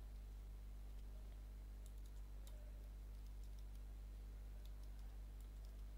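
Faint, scattered keystrokes on a computer keyboard as a short command is typed, over a steady low hum.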